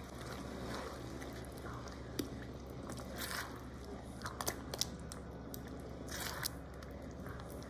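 A silicone spatula stirring thick blended tomato sauce with diced peppers and onions in an enamelled cast-iron pot: soft wet squelching with scattered light clicks and scrapes, over a low steady hum.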